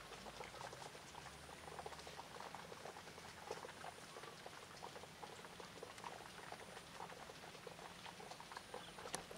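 Faint, dense patter of light rain dripping and ticking on surfaces.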